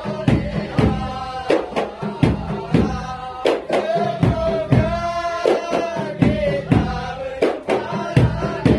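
Music: a song with a singing voice over a drum beat.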